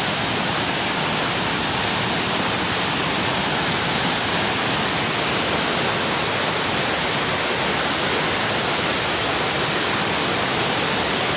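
Steady rushing of flowing water, an even hiss with no breaks or pitch.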